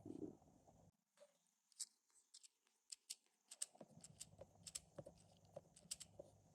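Faint, sharp plastic clicks of LEGO Technic parts being handled and fitted together, about fifteen at irregular intervals.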